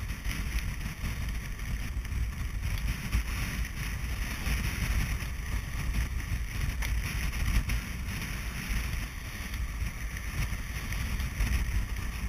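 Wind buffeting a GoPro's microphone aboard a sailing yacht beating upwind in a strong breeze: a gusty low rumble over a steady hiss.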